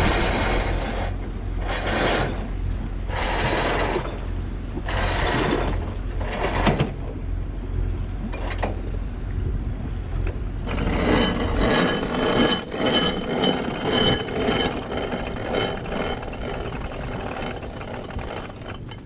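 Sailing yacht's winch clicking and ratcheting as the sails are hoisted and trimmed: a handful of separate ratcheting spells early on, then a long run of clicking. Under it is the low hum of the boat's engine, which stops about twelve seconds in.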